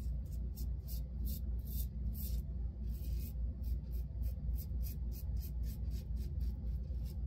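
Timeless 0.68 titanium safety razor scraping through lather and stubble on the neck in short, quick strokes, about three a second, over a steady low hum.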